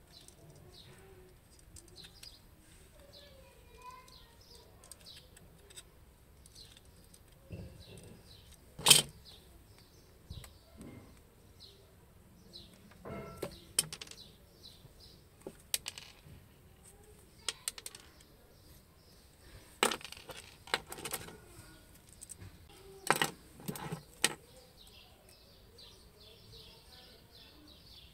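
Sharp clicks and knocks from tools and coaxial cable being handled on a tabletop, a few seconds apart, the loudest about nine seconds in. Birds chirp faintly throughout.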